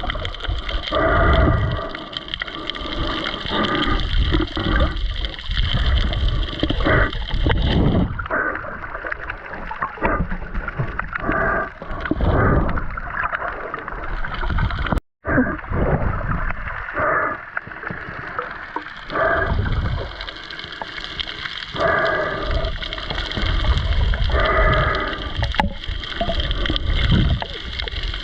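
Muffled underwater gurgling and sloshing of water in irregular surges, with a faint steady whine throughout. The sound cuts out for a moment about halfway through.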